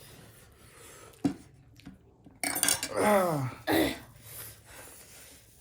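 A single sharp clink of tableware about a second in, then a loud breathy exhale and a wordless voiced sound falling in pitch, as a person reacts to very spicy noodles.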